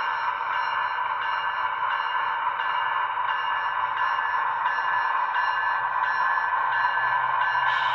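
Digital sound decoder in an HO-scale GE Tier 4 GEVO model locomotive playing the diesel engine running, through its small onboard speaker: a steady, tinny engine drone with a faint pattern that repeats about every 0.7 s. A brief hiss sounds near the end.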